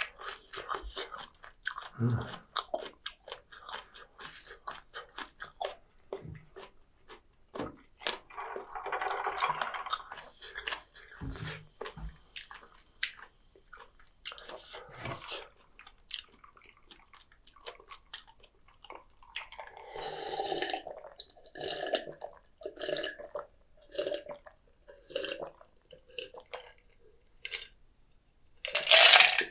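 Close-miked mouth sounds of a person chewing food, with scattered wet clicks and smacks. Near the end comes a louder burst as he drinks from a glass of iced drink.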